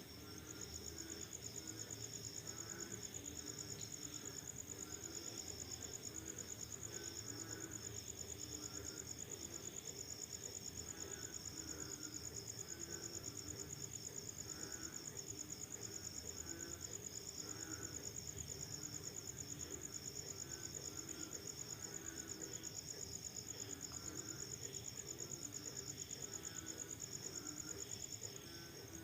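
Crickets trilling in a steady, rapidly pulsing high chirr that breaks off briefly near the end, with frogs calling in short repeated croaks underneath.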